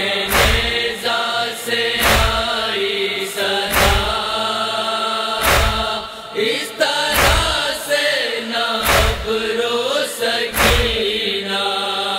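Voices chanting a drawn-out refrain of a Muharram noha (Shia lament) between the reciter's verses, over a slow, heavy beat that thumps about every 1.7 seconds.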